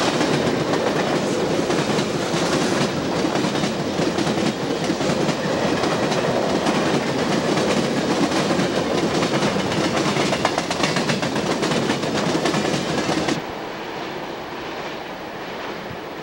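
A string of empty coal cars rolling past, with wheels clacking over rail joints and the steel car bodies rattling. The sound cuts off suddenly near the end to a quieter steady hiss.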